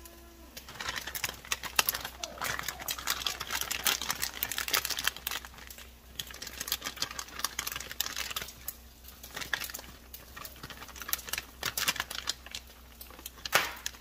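Wooden spoon stirring a thick, creamy shredded-chicken mixture in a slow cooker crock, a dense run of irregular wet clicks and scrapes, then the crinkle of a plastic bag as shredded mozzarella is shaken in.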